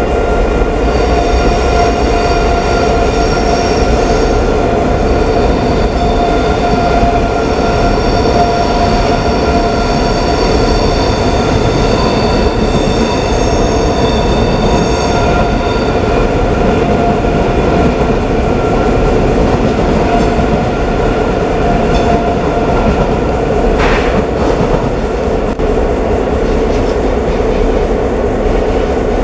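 DB ICE 3M high-speed electric train pulling out and moving off over the station tracks. It makes a steady loud hum with high whining tones through the first half. A brief sharp sound comes late on.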